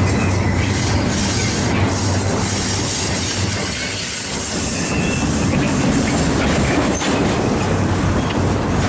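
Train rolling past close by: a steady, loud rumble of wheels and cars on the rails, with a low hum underneath.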